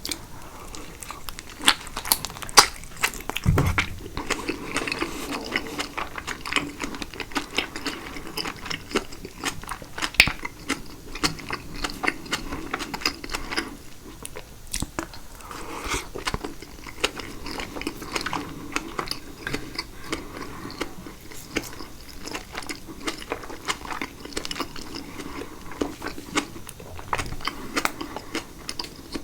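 A person chewing and biting mouthfuls of caprese salad (tomato, mozzarella and basil in a thick balsamic vinaigrette), with many quick, irregular mouth clicks throughout. A low thump comes about three and a half seconds in.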